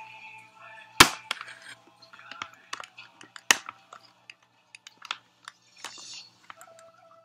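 Sharp plastic clicks and snaps as the clips holding a boxed model horse are worked loose by hand. The loudest snap comes about a second in, a second strong one a few seconds later, with lighter clicks in between.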